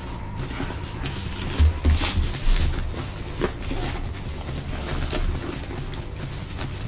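Rustling and clicking as a handbag with plastic-wrapped handles is handled and its zippered compartment pulled open, with a few low bumps about two seconds in.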